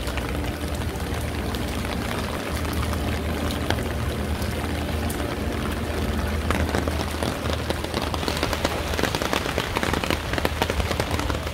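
Steady rain falling, with many small drops ticking on surfaces; the ticking grows denser in the second half. A low steady hum runs underneath.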